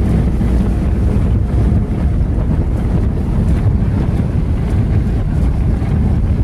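Steady low rumble of a car driving on an unpaved dirt road, heard from inside the cabin: engine and tyres on the rough surface.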